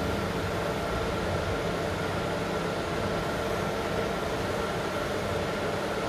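Laser marking machine running as it engraves a stainless steel plate: a steady, even hum with a few constant tones.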